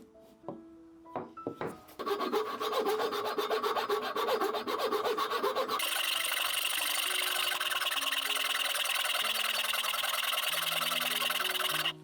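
A hand tool working wood: a quick run of rapid, even rasping strokes starts about two seconds in, then changes about halfway through into a steady, hissy scraping that stops abruptly at the end. Soft background music plays underneath.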